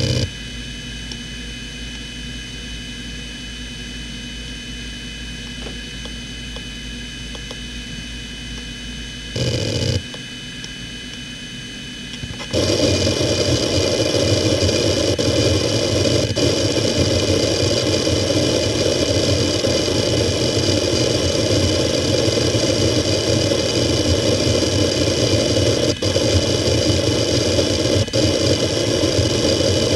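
Toshiba MK1401GRRB 15,000 rpm 2.5-inch SAS hard drive: its spindle spins with a steady high whine and fixed tones, with a short louder burst of head activity about nine seconds in. From about twelve seconds in the heads start seeking rapidly at random for a random seek test, giving a loud, continuous seek noise with occasional sharper ticks.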